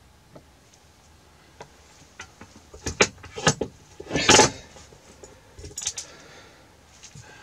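Metal hand tools clicking and clattering as they are handled and set down: scattered sharp clicks from about two seconds in, the loudest clatter a little past four seconds, and a few more near six seconds.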